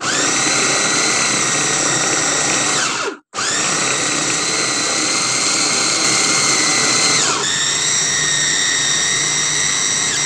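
Electric food chopper's motor whining as its blades mince raw chicken fillet with carrot and broccoli. It spins up, runs about three seconds, stops for a moment, then starts again and runs on, its pitch dropping slightly about seven seconds in.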